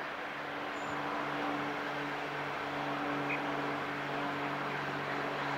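A steady low mechanical hum, two held low tones that set in about half a second in, over a soft even hiss.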